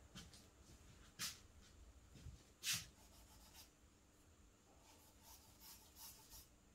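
Faint scratching of a charcoal stick stroked across drawing paper, in a few short separate strokes and then several in quick succession near the end, against near silence.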